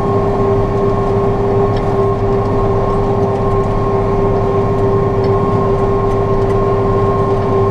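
John Deere 6115M tractor running steadily while pulling a loaded lime spreader, heard from inside the cab: an even engine drone with a steady high whine over it.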